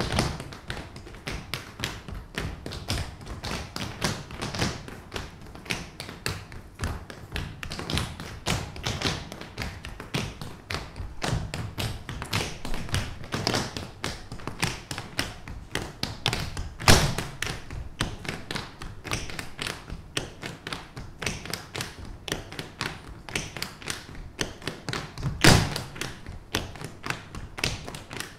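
A cappella tap dance: a group's tap shoes striking a stage floor in fast, dense rhythms with no music. Two much heavier stamps stand out, one a little past halfway and one near the end.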